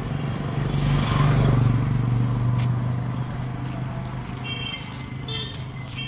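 Motor vehicle engine passing close by, its low hum swelling about a second in and slowly fading. A few short high-pitched beeps sound near the end.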